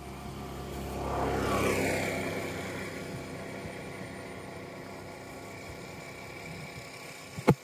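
A motor vehicle passing by: its engine noise builds over the first two seconds, then fades slowly with a falling pitch. A single sharp knock comes near the end.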